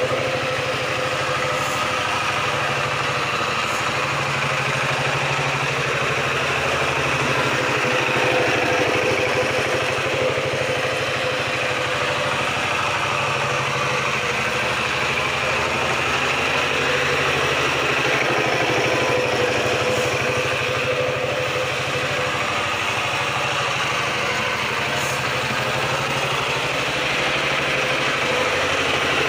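Kamco power tiller's single-cylinder diesel engine running steadily as the two-wheel tractor is driven over a thick layer of straw, with slight shifts in engine pitch.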